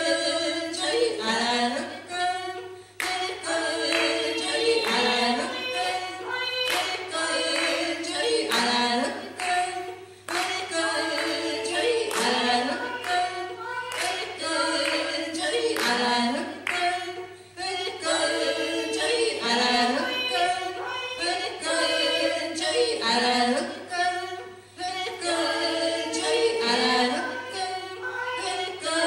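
Ainu women singing an unaccompanied chant, one short phrase repeated over and over as a dance song, with a few sharp accents scattered through.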